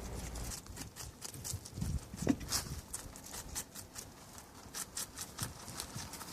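Rabbits crunching raw cabbage leaves: quick, crisp chewing clicks at about four or five a second, with a soft knock a little over two seconds in.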